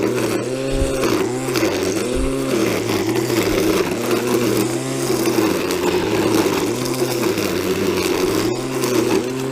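Small gas engine cutting brush and weeds. It runs steadily under load, its pitch sagging and recovering about once a second as it bites into the growth.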